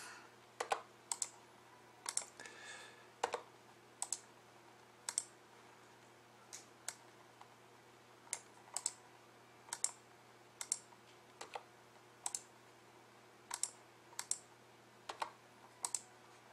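Sharp clicks of a computer mouse and keyboard, singly or in quick pairs at irregular intervals of about a second, as text is copied and pasted line by line into a form.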